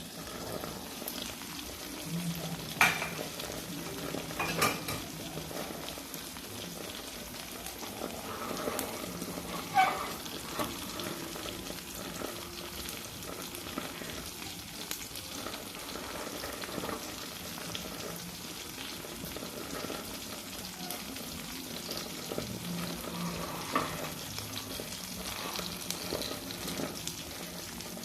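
Bánh xèo batter frying in a hot pan, a steady sizzle, with a few sharp knocks of a utensil against the pan.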